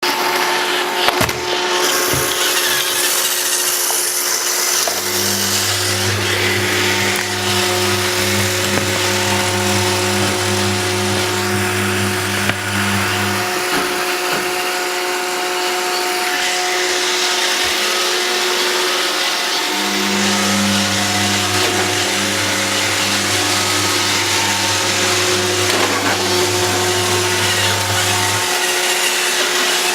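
iRobot Roomba 780 robot vacuum running, a steady motor whine with brush and suction noise. A deeper hum joins twice for several seconds, and there are a couple of knocks near the start.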